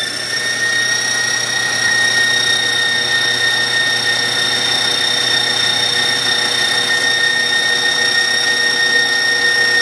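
KitchenAid Professional 5 Plus stand mixer running on high speed, its wire whip beating mashed potatoes to whip air into them. The motor gives a steady high-pitched whine.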